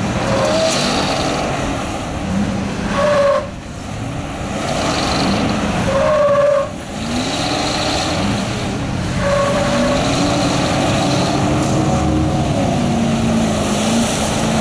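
Ford Bronco's engine revving hard as the truck churns through deep mud, its wheels spinning and mud and water splashing. The revs rise and drop back several times, then hold high for a long stretch near the end.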